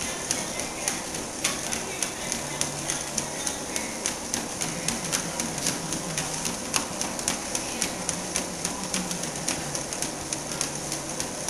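A Shiba Inu's paws and claws clicking on a moving treadmill belt as it walks: a quick, even tapping of steps, several a second.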